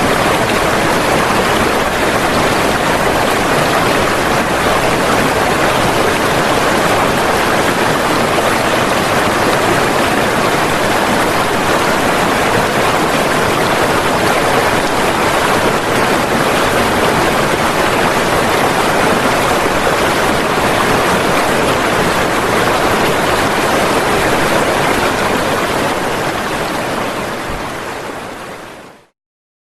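Rushing floodwater: a steady, loud rush of fast-flowing water that fades out over the last few seconds and stops.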